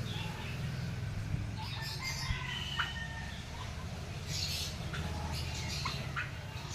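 Turkeys calling: scattered short calls and quick rising peeps, one longer held call about two to three seconds in, over a steady low hum.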